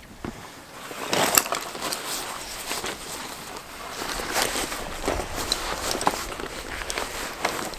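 Irregular rustling with scattered clicks and knocks of camping gear being handled as a backpack is swung on, the sharpest knock about a second and a half in.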